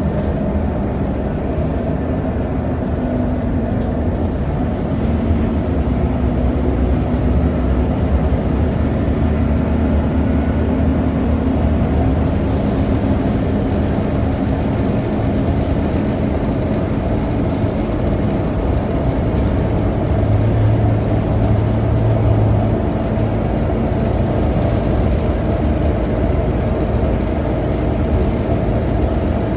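Steady engine and road noise of a CDC Hillsbus city bus cruising, heard from inside the passenger cabin. The low engine hum shifts in pitch a few times.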